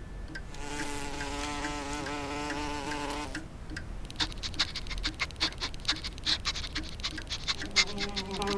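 Cartoon bee buzzing in flight, a droning hum that wavers in pitch, for about three seconds and then stops as it lands. It is followed by rapid light ticking, several clicks a second, as the bee crawls over the painted canvas, and a lower buzz starts up near the end.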